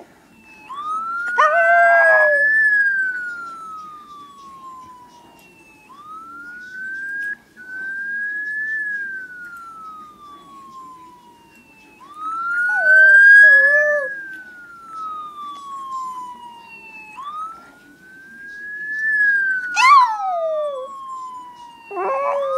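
A police siren sounds in repeated wails, each rising quickly and then falling slowly, starting again every five seconds or so. A small dog howls along with it in short cries, about four times.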